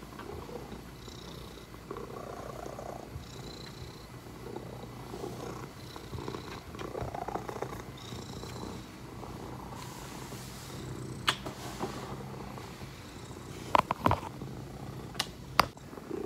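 Domestic cat purring steadily, close by, as it is stroked, the purr swelling and easing with each breath. A few sharp knocks sound in the second half, the loudest about fourteen seconds in.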